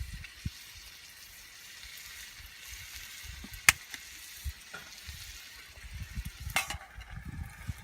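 Goya champuru (bitter melon stir-fry) sizzling in a pan as it is stirred. There is a sharp knock about three and a half seconds in and another a few seconds later, after which the sizzle is quieter.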